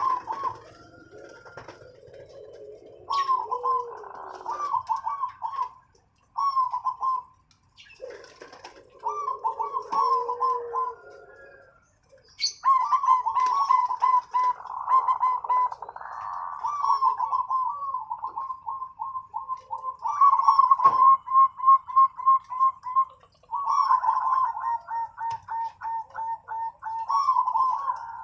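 Zebra doves (perkutut) cooing: phrases of rapid, rolling staccato notes, with short gaps between phrases. A lower, softer cooing joins in during the first half, and faint high chirps come from other small birds.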